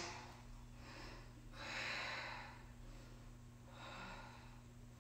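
A woman's breathing during a held yoga pose: three faint breaths, the middle one the longest and strongest, over a faint steady hum of room tone.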